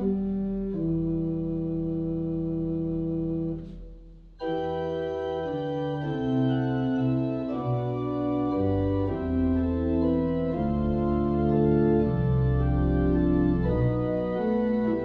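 Schantz pipe organ playing slow, sustained chords over pedal bass notes. A little under four seconds in, the sound dies away briefly, and the next phrase starts abruptly about half a second later.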